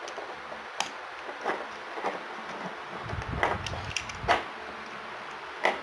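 Sheet-metal case of a small buck-boost converter module being pried apart by hand: fingers scraping and rubbing on the metal, with about half a dozen sharp clicks scattered through it as the case and its parts shift.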